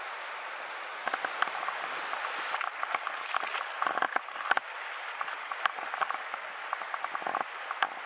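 Shallow river flowing over a stony riffle, with close, irregular splashes and drips that begin about a second in.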